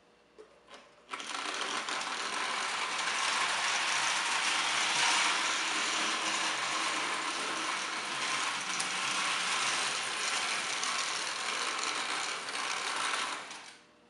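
Circa-1930 Lionel #253 O-gauge electric locomotive running a lap of tinplate track, its motor gearing and wheels making a steady mechanical whirr. The whirr starts suddenly about a second in and cuts off shortly before the end. A few faint clicks come just before it starts.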